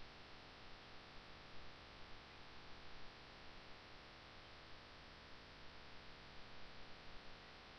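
Near silence: a faint steady hiss and hum.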